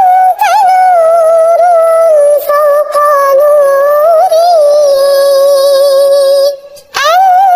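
Sholawat (Islamic devotional song) sung by a single high, synthetic-sounding voice in long wavering, ornamented phrases; the line breaks off briefly near the end and a new phrase starts.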